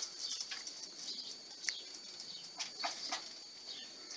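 Pigeons pecking corn from a wooden feeding trough: a few faint, irregular sharp taps over a steady thin high-pitched tone.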